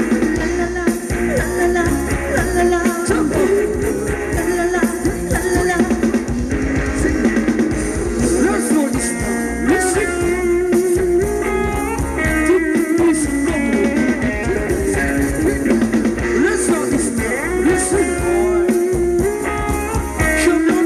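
Live Thai ramwong dance band music, played loud and without a break, with guitar and a drum kit keeping a steady beat and a singer's voice in places.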